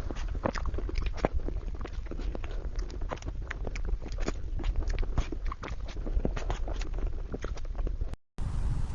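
Close-up eating sounds of a person chewing and biting cream cake, with many small irregular mouth clicks several times a second. The sound drops out briefly near the end.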